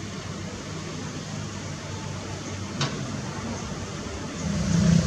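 Komatsu hydraulic excavator's diesel engine running steadily, with one sharp click just under three seconds in. A louder engine comes in near the end.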